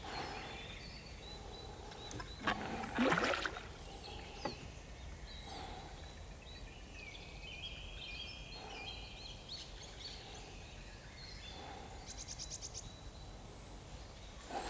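Quiet outdoor lakeside ambience with birds calling now and then, including a rapid trill about twelve seconds in. A brief louder noise comes about three seconds in.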